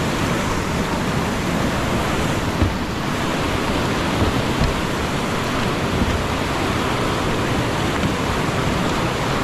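Steady rushing of whitewater at a river wave where kayakers are surfing.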